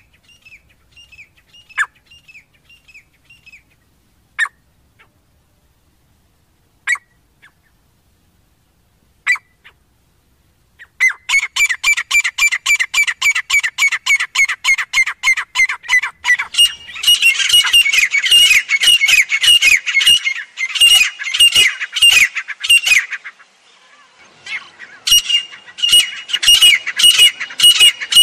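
Grey francolins (teetar) calling: a few single notes at first, then about eleven seconds in a loud, fast run of repeated calls, roughly four a second. The run goes on in bouts, with a short break about twenty-three seconds in.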